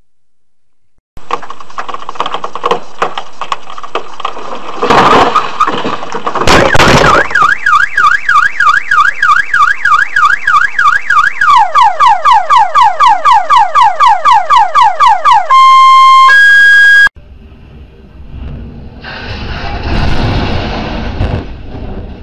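Car alarm going off and running through its cycle of tones: a rapid up-and-down warble, then repeated falling whoops, then two steady tones before it cuts off abruptly. Two loud bangs come shortly before it starts, and a noisy swell rises and fades after it stops.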